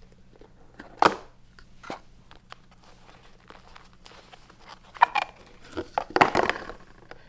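A cardboard gift box and a new wallet being handled during unboxing: short rustles, scrapes and knocks, loudest about a second in and again around six seconds in, over a faint steady low hum.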